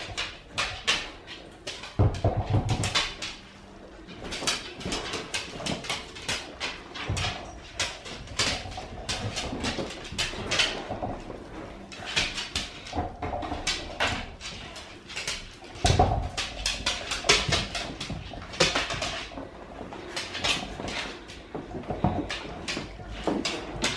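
Dogs nosing and rolling a treat-stuffed rubber toy around a hardwood floor: a busy, irregular run of knocks, clicks and scuffles, with heavier thumps about two seconds in and again about sixteen seconds in.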